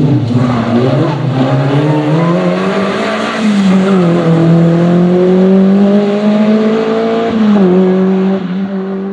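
Škoda Favorit rally car's engine revving hard as it accelerates away from a corner, the pitch climbing through the gears with two upshifts, about three seconds in and again about seven seconds in.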